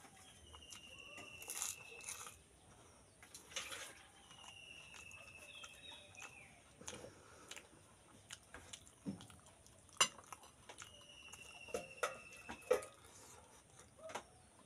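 Small crunches, crackles and clicks of pani puri shells being handled, filled and bitten, with a sharp clink about ten seconds in. A bird in the background gives a long, slightly falling whistled call three times.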